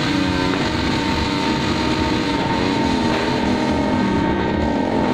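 A continuous New Year's Eve din of several engines revving up and down at once, with a steady high tone running through it.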